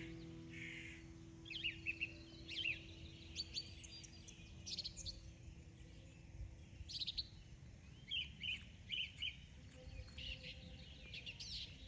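Small birds chirping in quick clusters of short, sharp calls, over a low, steady background rumble.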